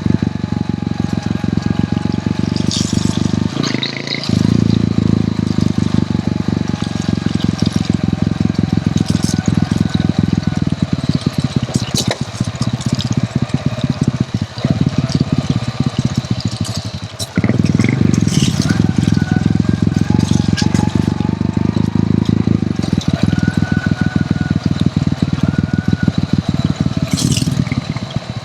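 Hero Honda CD100's small single-cylinder four-stroke engine running under way with a steady, rapid exhaust beat. It dips briefly about four seconds in and again near seventeen seconds.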